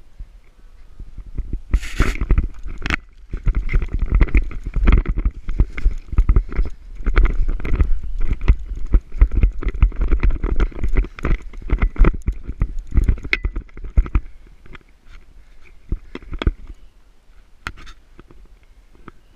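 Rapid movement through dense brush and dry grass: footsteps, with vegetation and clothing scraping and knocking against a body-worn camera's microphone, and heavy rumble from the jostled mic. It is loudest from about two seconds in until about fourteen seconds, then thins to scattered knocks.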